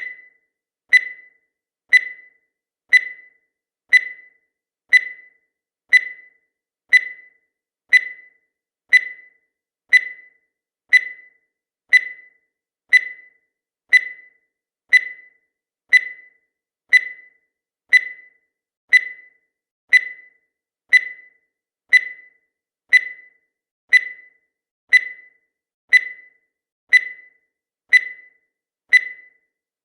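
Countdown timer beeping once a second: a short, high electronic beep that fades quickly after each strike, evenly spaced through the count.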